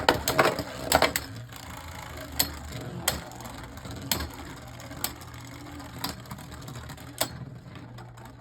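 Two Beyblade Burst spinning tops, Dullahan D4 and a Hypersphere Dullahan D5, spinning and rattling against each other in a plastic stadium. Dense loud clashing in the first second after the launch settles into a steady rattle broken by sharp clacks roughly once a second as the tops collide.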